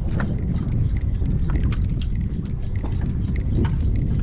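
Low, steady rumble aboard a small fishing boat, with irregular light clicks and knocks several times a second.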